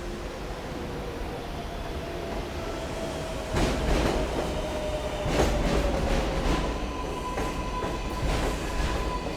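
R142A subway train on the 7 line running past, growing louder about three and a half seconds in, with its wheels clacking over rail joints in a series of sharp knocks. A steady whine sinks slightly in pitch, and a higher steady tone takes over near the end, as the train slows.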